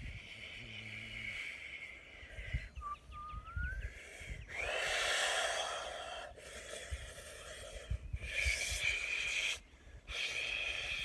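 A man's forceful, breathy exhalations, blown and hissed through the mouth in several bursts, the longest about two seconds, about halfway in. Part of a light-language vocal performance.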